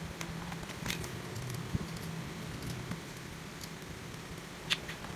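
Scattered light clicks and taps of small metal parts and a screwdriver being handled while a cordless impact wrench is reassembled, with a sharper click near the middle and another near the end, over a faint steady low hum.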